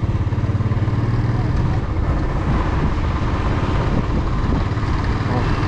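Royal Enfield Classic's single-cylinder engine running at a steady pace while being ridden, its rapid low pulsing mixed with rushing wind and road noise.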